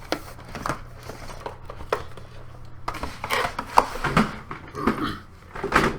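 Cardboard box packaging being handled and pulled apart: scattered knocks and clicks, then busier rustling and scraping in the second half as an insert comes loose.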